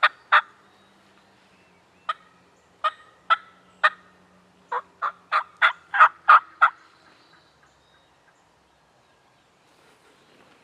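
Turkey yelps: two sharp yelps, then four more spaced out, then a quicker, louder run of about seven yelps that stops about two-thirds of the way through.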